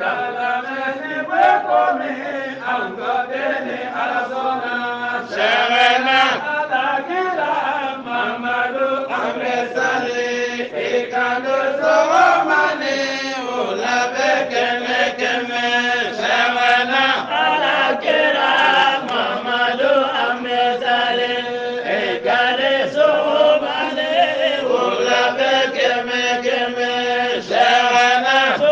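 Islamic devotional poem (qasida) being chanted without pause, a sung melodic line over a steady held drone.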